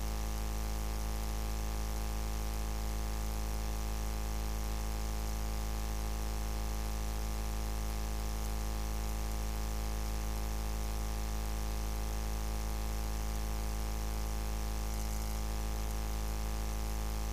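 Steady electrical hum: a low drone with a stack of unchanging tones over a faint hiss, never varying in pitch or level.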